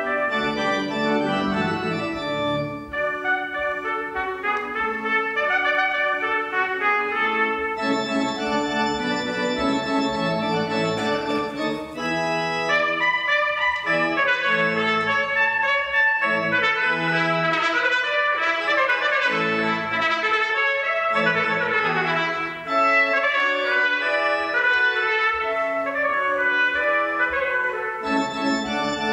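Piccolo trumpet playing a Baroque concerto, with fast running passages, over sustained church organ accompaniment.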